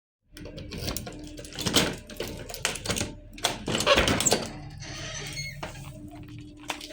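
Irregular clicks, knocks and rattles, loudest around two and four seconds in, over a faint steady hum.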